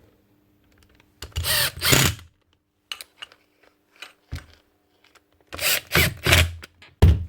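A cordless power drill-driver running in short bursts, about a second each, driving screws home while a rotary hammer's housing is screwed back together; two main bursts, each in two pulses, then a brief one near the end, with small clicks of parts being handled in between.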